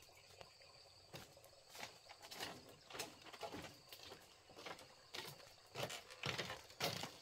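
Footsteps of a person in sandals walking toward the microphone along a path and onto a split-bamboo footbridge. The soft steps come at an ordinary walking pace and grow louder near the end.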